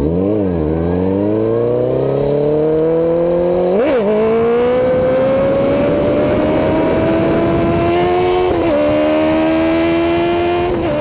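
2009 Kawasaki ZX-10R inline-four engine pulling away from a stop with a quick rev. It then accelerates steadily, its pitch climbing and dropping with upshifts about four seconds in, past eight seconds, and near the end.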